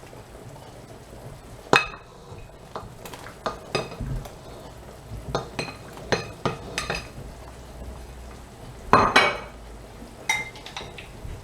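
Kitchen utensils knocking and clinking against pots, in irregular separate knocks with a louder clatter about nine seconds in, over a low steady hum.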